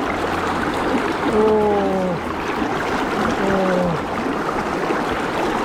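Steady rush of river current around a wading angler, with a man's voice twice giving a drawn-out, falling 'ooh' about a second and about three seconds in.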